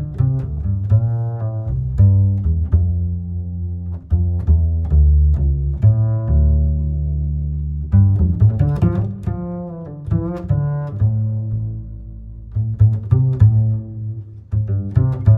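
Background music: low plucked and bowed strings, cello and double bass, with short plucked notes over a steady bass line.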